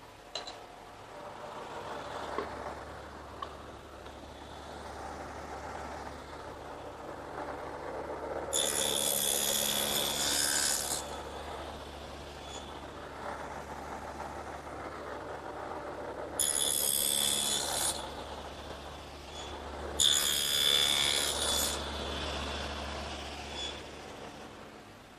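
Table saw with a two-blade adjustable dado head running steadily, as wood is fed through it three times to cut finger-joint slots; each pass is a loud, harsh cut lasting one to two seconds, the first about eight seconds in and the last two close together near the end.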